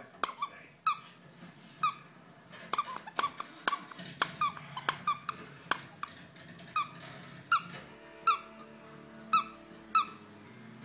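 A dog's squeaky toy squeaking as the dog chews it: about twenty short, sharp squeaks at an uneven pace, each a brief high note that dips at the end.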